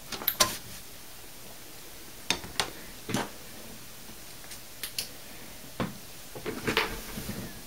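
Scattered sharp clicks and light knocks from a desktop computer's case and cables being handled as its power cord is unplugged from the back, about a dozen in all with a cluster near the end.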